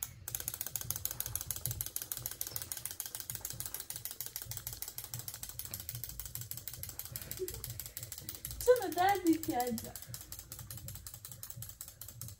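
Rapid, even mechanical clicking, like a ratchet, keeps going without a break; a voice cuts in briefly about nine seconds in.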